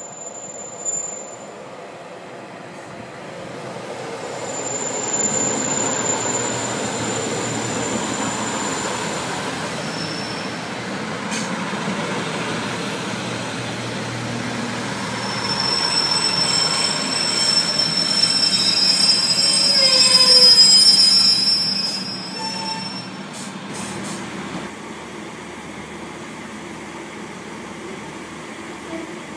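A Pacer diesel railcar in Northern Rail livery runs into the platform and passes close by. Its engine and wheel-on-rail rumble build from about four seconds in, and high wheel squeal comes in as it goes by. The sound is loudest about twenty seconds in, then dies back to a steady low rumble.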